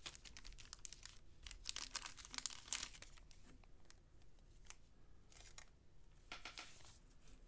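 Faint crinkling and rustling of trading-card packaging being handled by hand, in two spells: a longer one over the first three seconds and a short one near the end.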